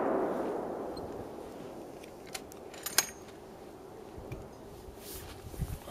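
The rolling echo of a .50 BMG shot from an ArmaLite AR-50 rifle, fading away over the first two seconds. After it come a few faint clicks and knocks, the sharpest about three seconds in.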